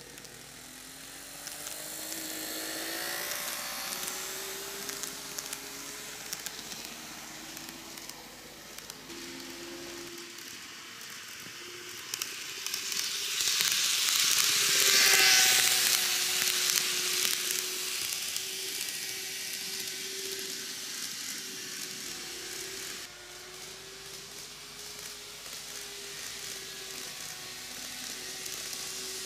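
KATO N-gauge model of the JR Shikoku N2000 series diesel train running on TOMIX canted track: the powered car's motor whines with a slightly wavering pitch over the hiss of the wheels on the rails. The sound swells as the train passes close, loudest about halfway through, then eases as it draws away.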